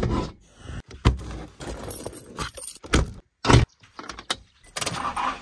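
Keys jangling, with several sharp metal clicks and knocks at the lock of an aluminium chequer-plate pickup canopy door. Near the end, steady vehicle running noise takes over.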